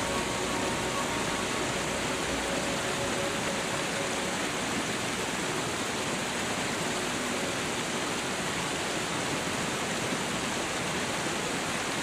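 Waterfall: a steady, even rush of falling water with no change throughout.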